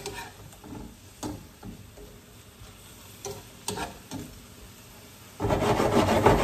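Metal tongs stirring and scraping shrimp in a soy-sauce mixture in a skillet, a few separate strokes over a faint sizzle. About five seconds in, a much louder rush of noise lasts about a second and a half.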